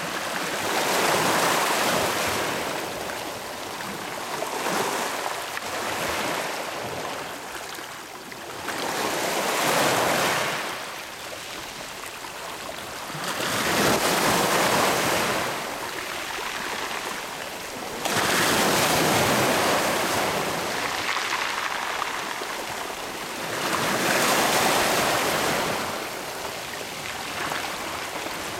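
Small sea waves washing over rocks and shallow water at the shore, a hiss of moving water that swells and eases every four to five seconds.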